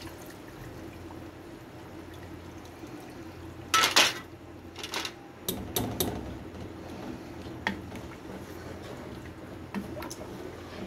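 Flour-and-gram-flour batter pouring through a steel mesh strainer into a pot of simmering stew, the strainer catching lumps, followed by metal clinks and clatters of the strainer and spoon against the pot. The loudest clatter comes about four seconds in, with scattered lighter clinks after it.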